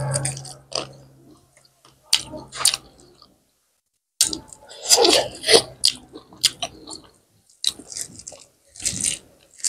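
Close-up chewing and wet lip-smacking of a hand-fed mouthful of rice and buffalo curry, made up of many short mouth clicks with a brief silent gap about halfway through.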